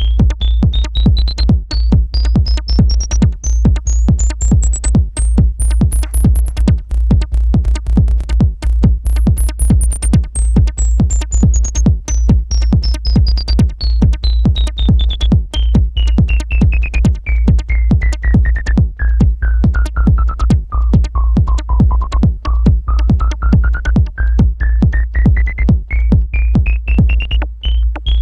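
Electronic dance music with a heavy bass, a fast steady beat and a synth tone that sweeps slowly up, down and up again.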